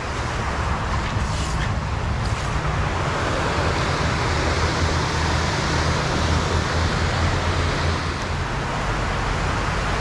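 Steady rush of creek water pouring over a low concrete dam.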